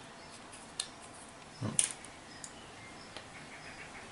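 Faint, scattered clicks and taps of small tools and parts being handled on a workbench, with a brief low, falling murmur about a second and a half in.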